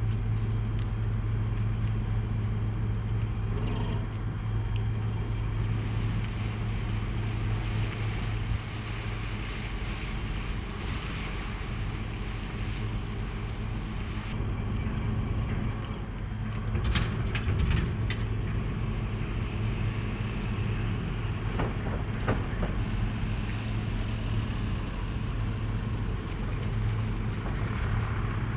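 Small car ferry's diesel engine idling at the landing, a steady low hum, with water and wind noise. A few sharp knocks and clanks a little past halfway, and again a few seconds later.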